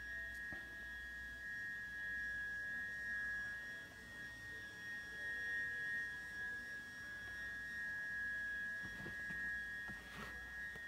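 A steady high-pitched whine made of two close, unchanging tones, over a faint low hum.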